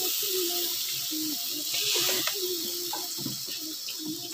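Noodles and vegetables sizzling in a hot iron kadai while being stirred and tossed with a metal ladle: a steady frying hiss with light scrapes and clicks of the ladle.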